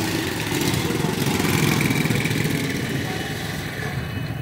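Small motorcycle engine running as it rides close past, over street traffic. The sound swells over the first two seconds or so and then eases off.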